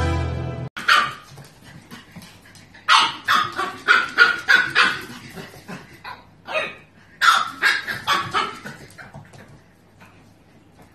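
Background music cuts off under a second in. Then a pug puppy gives a string of short, high barks in bursts, which die away near the end.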